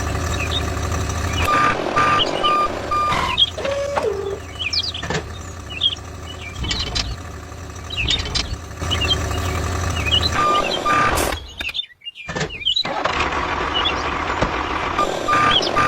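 Construction vehicle running steadily, with a reversing beeper sounding in short runs of about two beeps a second: about a second and a half in, again around ten seconds, and near the end. The sound drops out briefly around twelve seconds.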